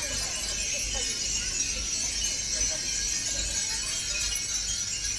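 Hundreds of Japanese wind chimes (furin) tinkling together in the breeze: a dense, unbroken jingling with no single strike standing out. Faint voices of people nearby sit underneath.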